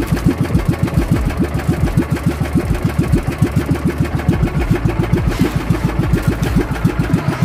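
Small outrigger fishing boat's engine running steadily under way while trolling, a fast even beat of exhaust pulses, with a brief hiss about five seconds in.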